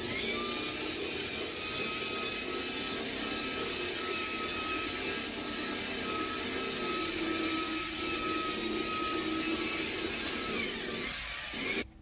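Corded electric drill running steadily as its bit bores through the ambulance's metal body wall, with a constant motor whine; it stops shortly before the end.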